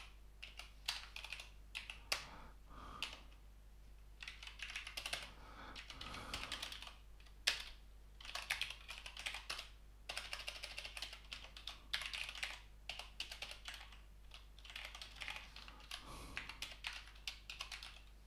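Typing on a computer keyboard, in quick runs of keystrokes broken by short pauses.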